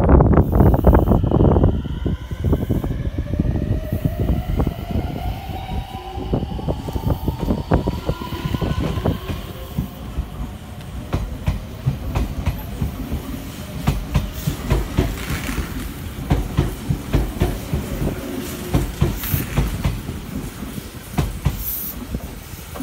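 Meitetsu 3100 and 3500 series electric train pulling away: the inverter traction motors whine in several tones that rise together in pitch over the first ten seconds or so. Throughout, the wheels click steadily over the rail joints as the cars roll past. It opens with a brief loud burst of noise.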